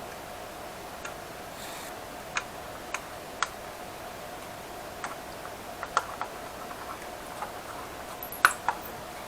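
Irregular light clicks and taps of small laptop parts being handled and fitted during reassembly, the loudest about three and a half seconds in and again near the end, over a faint steady hum.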